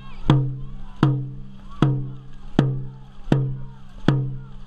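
Dragon boat drum beaten at a steady race pace, about one deep, ringing boom every three-quarters of a second, six strikes in all, setting the paddlers' stroke rate.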